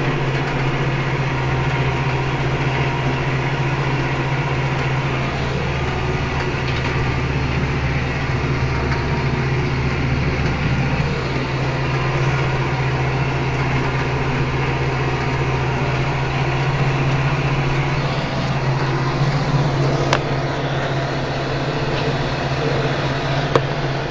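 Kubota M8540 tractor's four-cylinder diesel engine running steadily, heard from the driver's seat, with a couple of brief knocks near the end.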